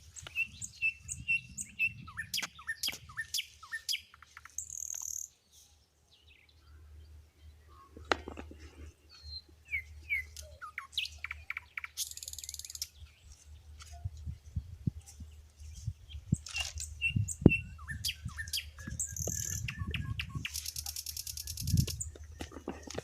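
Birds chirping and calling repeatedly, with a few short bursts of high hiss and intermittent low rumbling noise.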